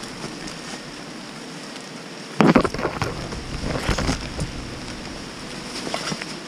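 Steady rain patter on wet rain jackets and leaves. Over it come loud rustles and knocks as wet branches and leaves brush and scrape across the microphone while the wearer pushes through undergrowth. The loudest comes about two and a half seconds in, with more scrapes over the next two seconds and near the end.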